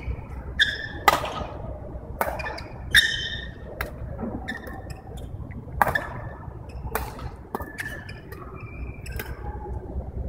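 Badminton rackets hitting a shuttlecock in a rally, a string of sharp cracks about a second apart, with brief high squeaks of court shoes on the floor. The low rumble of a large sports hall runs under it.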